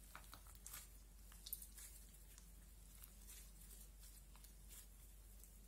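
Faint, irregular squishing and little crackles of slime being squeezed and kneaded by hand.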